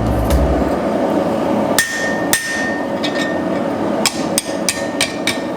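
Hammer blows on a punch, driving a hole through hot steel tong stock over the anvil's pritchel hole. There are two blows, then a quicker run of about five, and some leave a short ring from the anvil. A steady hiss runs underneath.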